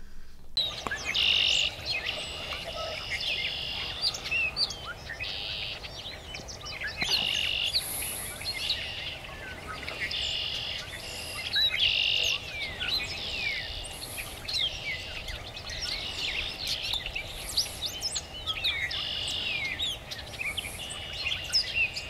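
Several songbirds singing together: a buzzy trilled note repeated every second or two among many short chirps and whistles, over faint steady background noise.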